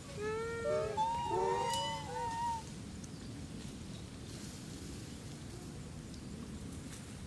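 Macaques calling: a cluster of high, arching coos, several overlapping at different pitches, lasting about two and a half seconds from just after the start, then only a steady outdoor background hiss.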